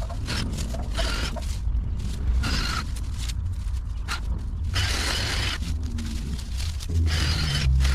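A steady low rumble, growing louder near the end, with repeated short bursts of scraping, hissing noise about once a second.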